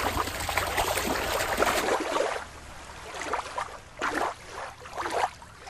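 Water splashing and sloshing as a hand dunks and swishes a toy starfish in shallow water, for about two seconds; then quieter, scattered soft water swishes.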